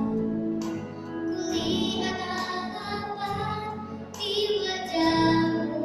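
Children's choir singing with musical accompaniment, with long held notes that waver slightly.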